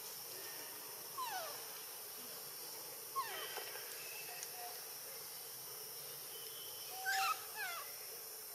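Baby macaque crying: three bouts of short, high squeals that each slide steeply down in pitch, about one, three and seven seconds in.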